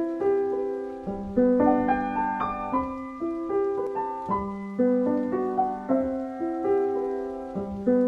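Intro music on piano: chords and notes struck every half second or so, each fading after it is played.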